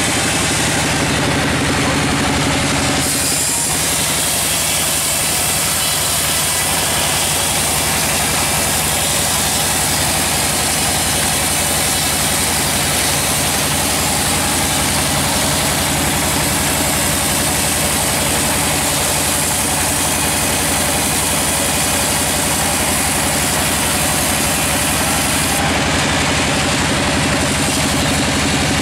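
Band sawmill running with its blade cutting lengthwise through a log: a steady machine drone with a high hiss over it.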